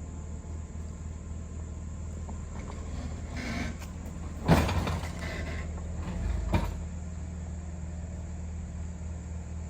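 Jeep engine running steadily at low revs while crawling over rocks, with a loud sharp bang about halfway through and a smaller knock about two seconds later.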